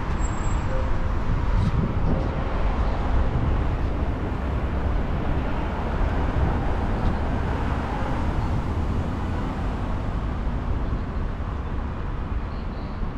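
Steady outdoor city noise, a low rumble with no distinct events: general street and traffic ambience.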